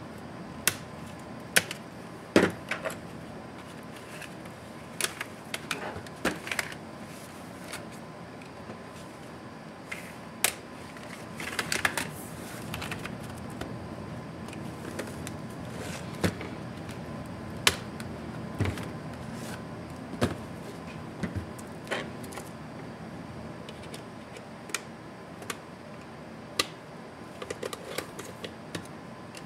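Plastic clips of an ASUS Zenbook UX360C laptop's bottom case snapping loose as a pry tool is worked along the seam between cover and deck: about twenty sharp clicks and snaps, irregularly spaced, some in quick little clusters, over a steady low hiss.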